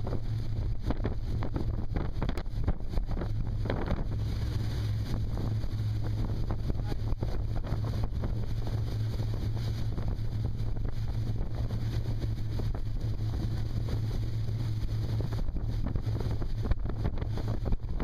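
Open speedboat running at speed: a steady low engine drone, with wind buffeting the microphone and water rushing past the hull.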